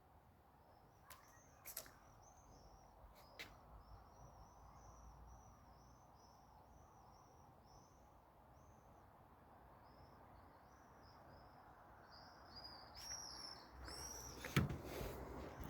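Faint bird chirping: a long run of short, high chirps, about two a second, with a few sharp clicks. Louder knocks and handling sounds come near the end.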